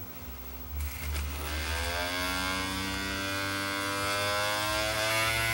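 Small DC disc-spindle motor of a CD mechanism running on its own off a bench power supply, giving a whirring whine. The whine sinks slightly at first, and after a brief crackle about a second in it climbs steadily in pitch and loudness as the voltage is turned up toward about 8.5 volts to spin the motor's bearing up.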